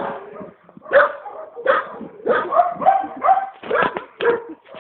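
A dog vocalizing in a string of short, pitched calls, with a close run of them in the middle.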